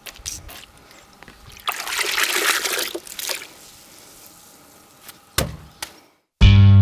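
Water running and trickling in a burst of about a second, about two seconds in, with faint clicks around it. Near the end, after a brief silence, loud rock music with guitar cuts in.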